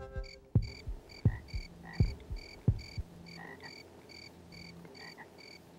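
Heartbeat sound effect: low, deep thumps about one every 0.7 s that stop about three seconds in, the sign of a heart giving out. Under it runs a steady rhythmic night chirping, about three chirps a second.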